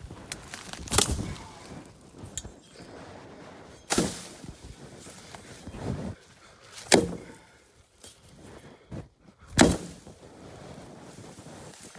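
Weed stalks being chopped with a hand tool: four sharp strikes, about three seconds apart, with rustling of plants between them.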